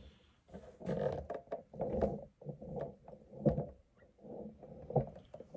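Hands handling a silicone mould holding setting Alumilite resin on a plastic-covered worktable: scattered soft knocks and scuffs, a few each second, with short pauses between.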